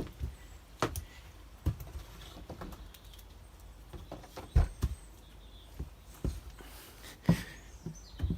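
Scattered, irregular knocks and clicks with a few sharper low thumps, the loudest about four and a half and seven seconds in; no engine running.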